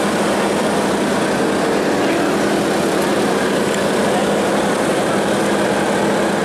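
A steady mechanical drone of engines running, holding one pitch without any revving.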